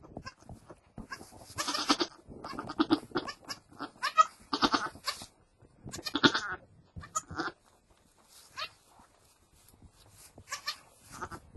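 Goat bleating, several short calls mostly in the first seven seconds and a fainter one near the end, with rustling in straw bedding.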